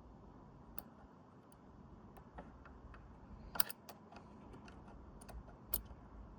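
Scattered light metal clicks and taps of a screwdriver and loosened parts while screws are worked out of a Teletype Model 35 typing unit, with two louder clicks in the second half.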